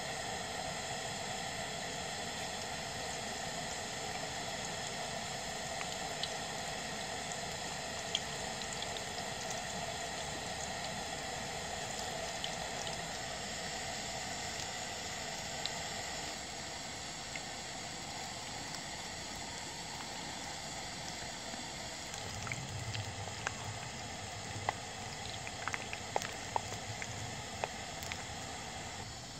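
Gram-flour pakoras deep-frying in hot oil in a pan: a steady sizzle with scattered sharp pops, which come more often in the last several seconds.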